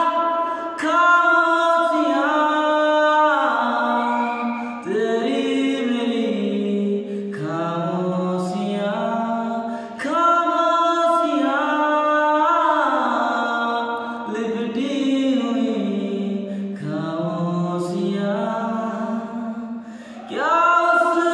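A man singing unaccompanied, holding long notes that step up and down in pitch, with a short break for breath near the end.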